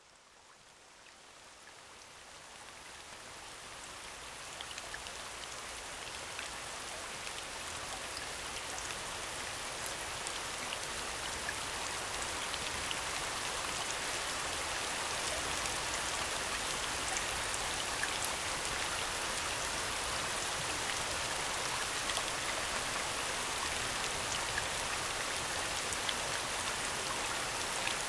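Soundscape of falling rain: a dense, even hiss of rain with scattered drop ticks, fading in from near silence over the first few seconds and growing louder until about halfway through, then holding steady.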